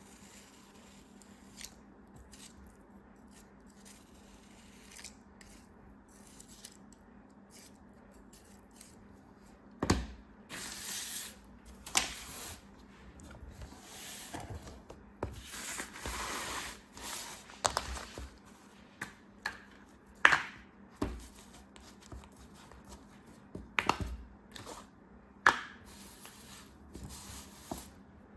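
Packaging being handled and opened by hand: rustling and tearing of wrapping with sharp clicks and taps. It is quiet at first with only faint ticks, and grows busier and louder about a third of the way in.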